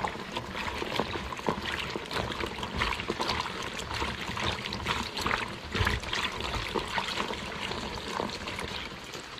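Water pouring and trickling with irregular small splashes as vegetables are rinsed by hand.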